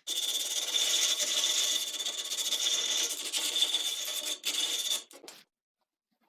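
A small power tool running steadily while it works wood, with a constant high whine over a rasping noise; it cuts off suddenly about five seconds in.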